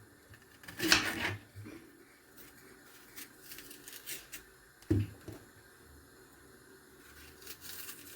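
Kitchen handling: a few scattered knocks and light clicks, the loudest about a second in and another near five seconds, over quiet room tone.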